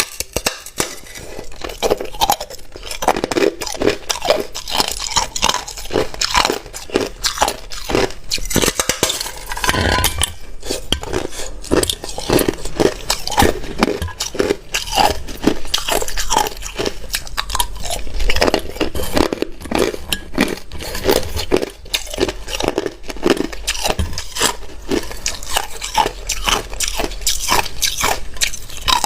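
Hard ice being bitten and chewed up close: a continuous run of loud, irregular crunches and cracks.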